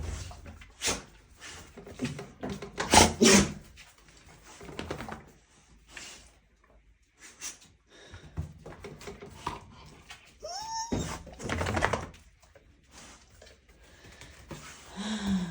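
Dog sneezing over and over, many short sharp sneezes at irregular intervals, with a short rising whine about ten seconds in.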